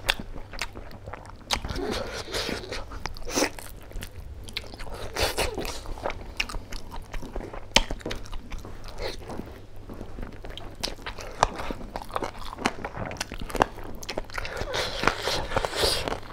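A man eating pork curry and rice with his hand, close to a clip-on microphone: chewing and biting with irregular wet clicks and smacks.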